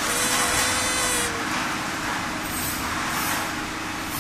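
Steady workshop machinery noise: a constant hum under a hiss, with a brief higher whine in the first second or so.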